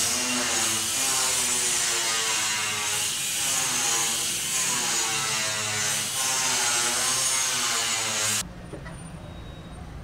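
Handheld power tool running under load on a metal frame: a harsh, hissing whine whose pitch wavers, cutting off abruptly near the end.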